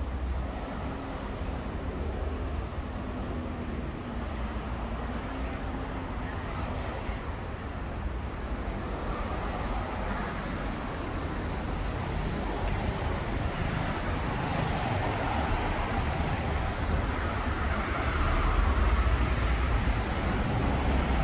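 City road traffic on wet roads: a steady rumble of car engines and tyre noise that grows louder over the last few seconds.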